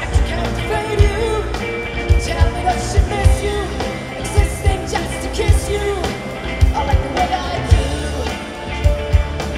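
Live rock band playing: a woman sings lead into a microphone over electric guitar, bass and drums keeping a steady beat.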